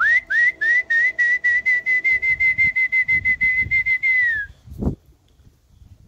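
A person whistling to call racing pigeons down to the loft: a few rising chirps, then a rapid run of short, even whistles at about six a second, ending in a falling note. A brief low whoosh follows just after.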